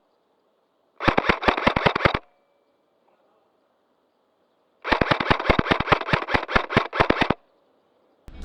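Airsoft gun firing two full-auto bursts of sharp, evenly spaced shots, about nine a second. A short burst comes about a second in and a longer one about five seconds in.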